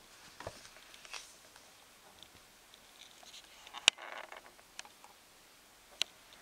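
A hardcover picture book being handled, closed and turned over: soft rustling and page noises, with a sharp tap about four seconds in and another near the end.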